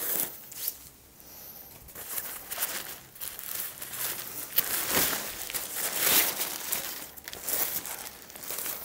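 Irregular crinkling and rustling of the bed tent's white fabric air adapter as it is handled and shaken open by hand.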